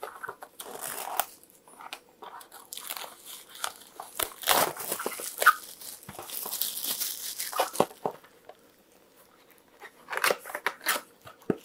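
Clear plastic shrink-wrap being torn and crinkled off a small cardboard box: irregular bursts of crackling and rustling, with a short lull near the end.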